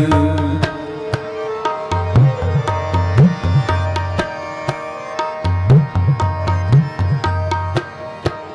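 Kirtan instrumental interlude: tabla strokes in a steady rhythm, the bass drum's pitch swooping upward on some strokes, over sustained harmonium notes. The last sung note fades out about half a second in.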